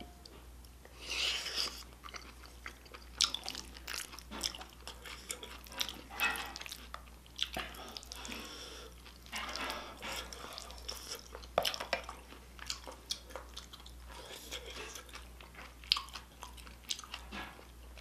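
A person chewing mouthfuls of spicy stir-fried octopus and rice close to the microphone, with wet mouth smacks and short clicks throughout.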